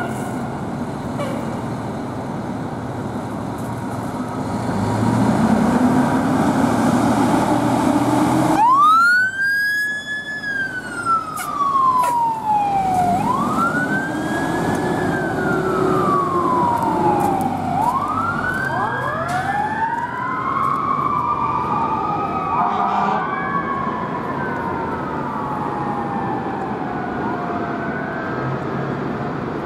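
Pierce fire engine pulling out, its diesel running, then its siren starts about nine seconds in: repeated wails that rise quickly and fall slowly, with a second overlapping siren tone joining in later.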